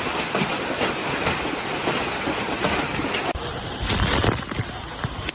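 Storm-force wind blowing hard and buffeting the microphone as a dense, rushing noise. It changes abruptly about three seconds in, then gets louder for a moment just after.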